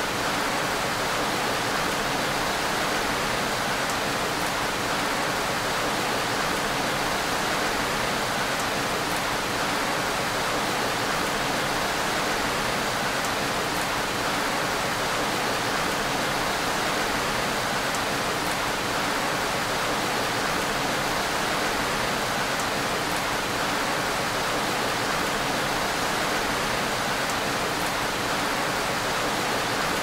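Steady gentle rain falling on window glass: a constant, even hiss with a few faint drop ticks.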